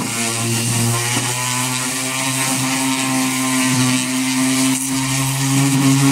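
Corded random orbital sander running on a weathered wooden crate lid: a steady motor hum with a hiss of sandpaper on wood, its pitch wavering slightly a few times.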